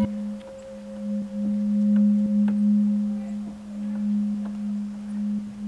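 Meditative drone tone in the style of a singing bowl: a steady low hum with a fainter higher tone above it, slowly swelling and fading, with a few faint ticks over it.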